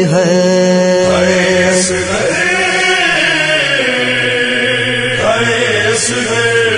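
A male reciter chants an Urdu noha, a Muharram lament for Ali Asghar, into microphones in long held lines, with other voices chanting along from about a second in.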